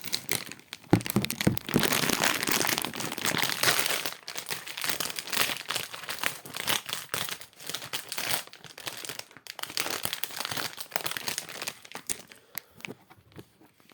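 Soft plastic popcorn bag being opened and handled, its plastic crinkling and crackling almost without pause. The crinkling starts sharply and is loudest about a second in, and thins out near the end.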